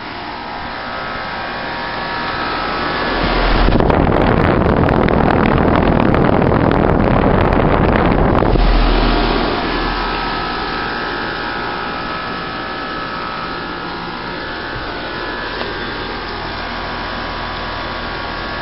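Bryant Evolution 16 SEER heat pump outdoor unit running: a steady mechanical hum of compressor and condenser fan with a faint steady whine. From about four to nine seconds in, a much louder rushing of air comes over it, then drops back.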